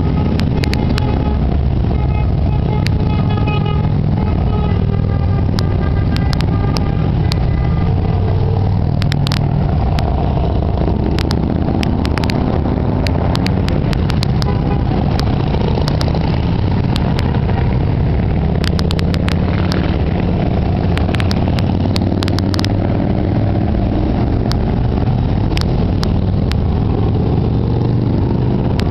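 A continuous stream of large cruiser and touring motorcycles riding past one after another, their engines running steadily with no break.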